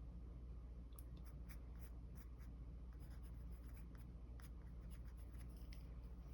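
Mechanical pencil scratching on paper in many short, quick strokes, over a steady low hum.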